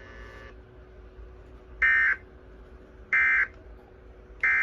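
Emergency Alert System end-of-message data bursts: short, harsh digital screeches of paired SAME tones around 1.5–2 kHz, which mark the end of the alert. Two come about a second apart, and a third starts just before the end.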